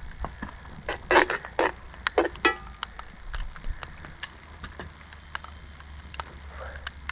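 Metal tongs clicking, clacking and scraping against a cast-iron dutch oven while boiled noodles are lifted out, with a cluster of louder clanks and a brief metallic ring between about one and two and a half seconds in. A steady low rumble runs underneath.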